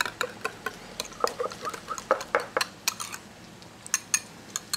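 Wire whisk clicking and scraping against a small glass bowl as it beats a mayonnaise sauce, in quick irregular strokes with a brief pause a little past three seconds in.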